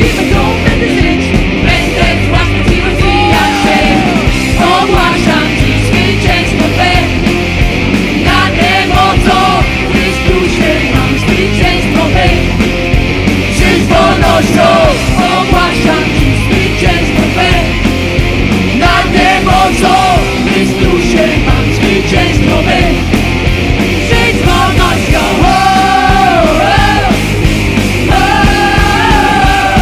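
Worship band playing a loud rock-style song, a singer's voice carried over the full band with strong bass and drums.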